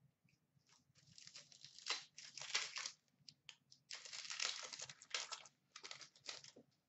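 Wrapper of an Upper Deck hockey card pack crinkling and tearing as it is ripped open, in two stretches of rustling, one about a second in and one around four seconds in.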